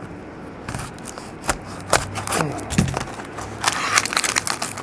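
Trading cards and a foil card-pack wrapper being handled and cut open: a run of sharp clicks, snips and crisp rustles.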